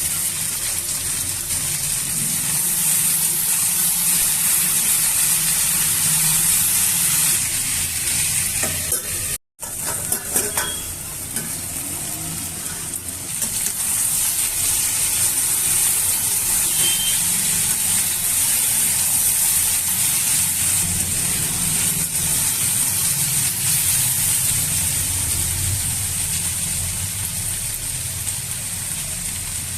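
Kunduri (ivy gourd) and potato frying in hot oil in a pan, a steady sizzle, with a few clicks of stirring. The sound cuts out briefly about a third of the way through.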